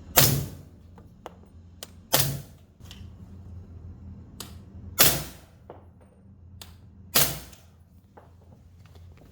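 Four suppressed shots of 300 Blackout 220-grain subsonic ammunition from a 7.5-inch barrel fitted with the larger suppressor, spaced about two to three seconds apart, each a sharp crack with a brief ringing tail. Fainter clicks fall between the shots.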